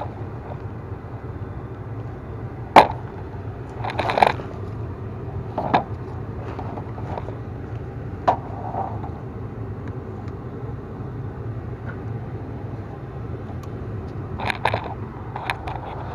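Natural gas furnace running just after ignition, its exhaust inducer motor and lit burners giving a steady hum. Several sharp clicks and knocks break in, the loudest about three seconds in and a cluster near the end.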